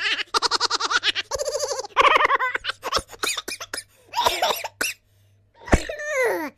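Silly comic laughing sound effect: a voice laughing in quick runs of short 'ha' pulses, with a pause in the middle, then a laugh that slides down in pitch near the end.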